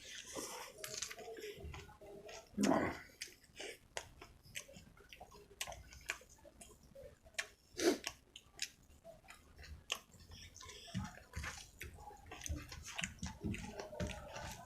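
Close-up eating sounds of rice with chicken and gravy: wet chewing and lip smacks, with two louder wet mouth sounds about three and eight seconds in.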